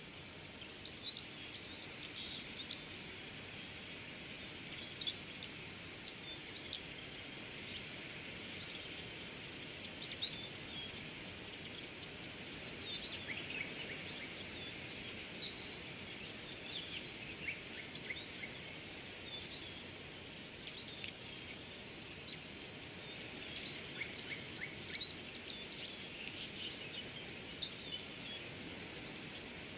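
Outdoor bush ambience: a steady, high-pitched insect drone runs throughout, with scattered short bird chirps over it.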